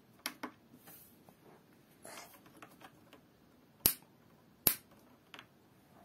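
Plastic control buttons of a toy Miele Softtronic washing machine clicking as they are pressed: a few light clicks at the start, then two sharp, loud clicks less than a second apart in the middle, and a fainter one after.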